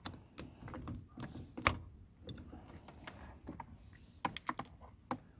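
Wrench working on a battery terminal clamp, loosening it: irregular metallic clicks and taps, with one louder knock about one and a half seconds in and a quick run of clicks near the end.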